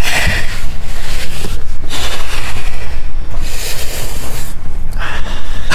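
Loud rubbing and scraping noise close to the microphone, in uneven surges of hiss.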